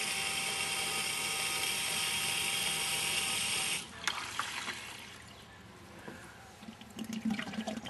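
Small 12-volt bilge pump in a nearly empty bucket, running with a steady hiss of water and air rushing through it, cut off abruptly a little under four seconds in when its power is disconnected. A few faint clicks and knocks follow.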